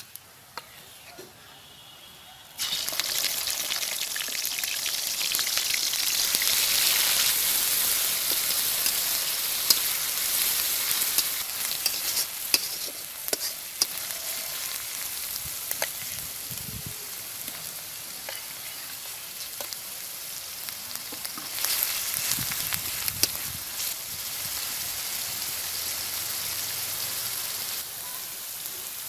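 Spice paste (onion, garlic and green chili) frying in hot oil in an aluminium kadai, with a metal spatula scraping and clicking against the pan as it is stirred. The sizzle starts suddenly and loud about two and a half seconds in, after a quiet low frying of bay leaves, then settles to a steady hiss.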